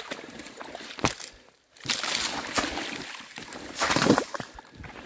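Footsteps sloshing and crunching through wet, melting spring snow and slush, taken in uneven steps, the loudest about four seconds in.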